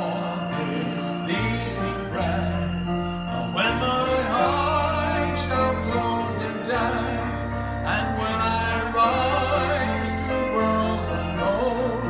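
A man singing a hymn solo through a microphone with a wide vibrato, over an instrumental accompaniment of held bass notes that change every second or two.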